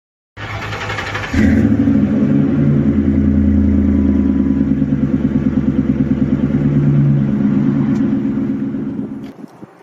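V8 car engine, likely the 1999 Ford Crown Victoria's 4.6-litre, running with a steady pulsing exhaust note. It comes in loud about a second in and drops away near the end.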